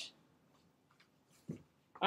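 Near silence: room tone, with one faint, very short soft sound about one and a half seconds in.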